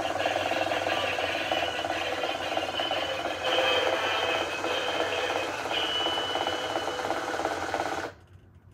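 Max Turbo toy car's sound chip playing a song through its small built-in speaker, tinny and distorted, cutting off abruptly about eight seconds in.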